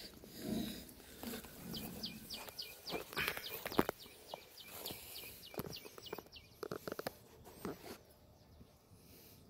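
A bird chirping in a quick run of short, falling notes, about four a second, for several seconds. Scattered knocks and rustles sound over it, the loudest a sharp knock about four seconds in.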